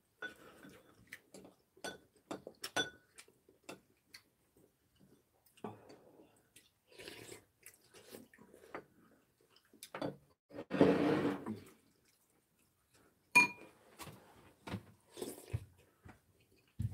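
Eating sounds at a table: scattered light clicks of metal spoons and chopsticks against ceramic bowls, with chewing and a longer slurp of clam sujebi soup about ten seconds in.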